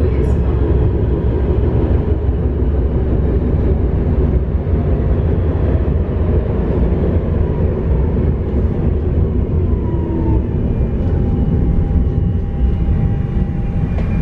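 Nuremberg tram running between stops: a steady low rumble of wheels on rail, with a faint electric motor whine that shifts in pitch partway through.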